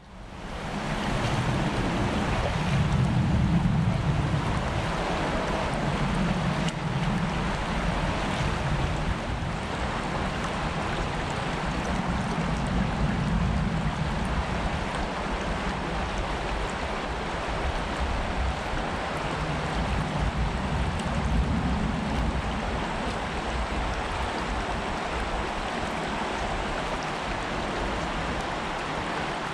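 Small shallow creek running steadily over its bed, an even rushing wash of water, with a low rumble that swells and fades several times.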